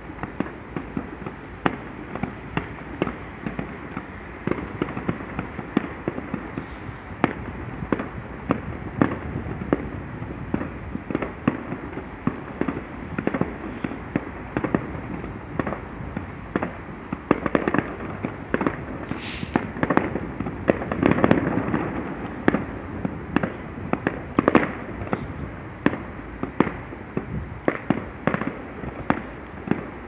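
Fireworks display going off in a dense, continuous barrage of bangs and crackles, several a second, building to its loudest run about two-thirds of the way through.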